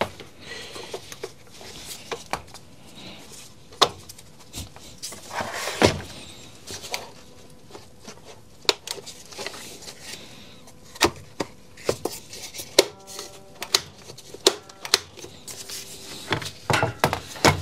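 Irregular plastic clicks and knocks from a Makita UC3541A electric chainsaw's housing and front handle being handled and fitted together by hand, with a brief squeak about two-thirds of the way through.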